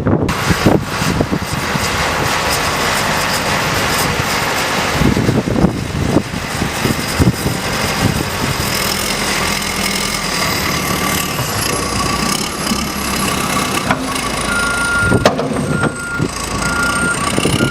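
Heavy snow-removal vehicle's engine running loudly. Near the end its backup alarm starts, beeping about once a second as it reverses.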